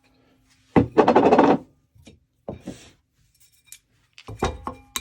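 A hand plane blade is held briefly against the Work Sharp WS3000's spinning abrasive platen. About a second in there is a knock, then a harsh grinding scrape lasting under a second, followed by scattered clicks and a clatter of metal handling near the end.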